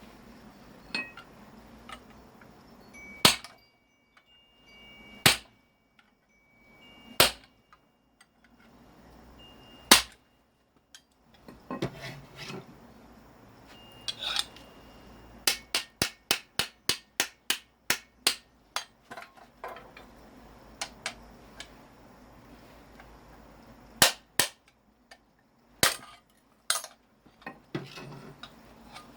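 Hammer striking metal while breaking down a scrap electric motor to get at its copper windings: single sharp blows about two seconds apart, then a quick run of about four blows a second, then a few more, some leaving a short metallic ring.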